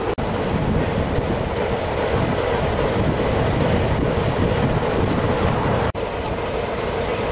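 Class 33 diesel locomotive's Sulzer engine running, a steady low rumble. The sound drops out for an instant twice, about a quarter second in and about six seconds in.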